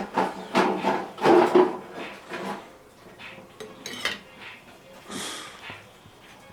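Kitchen utensils clinking and knocking against dishes and pans. The strikes are loudest and closest together in the first two and a half seconds, with a few lighter clinks and a brief rustle later.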